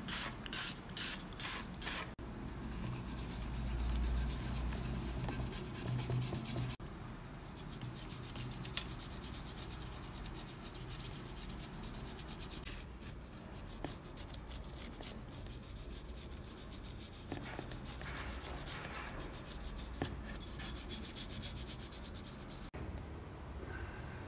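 A trigger spray bottle pumped about five times in quick, even succession, then a small stiff brush scrubbing a model truck body in a tub of foamy cleaner, in several long stretches with brief pauses, as the old paint is scrubbed off.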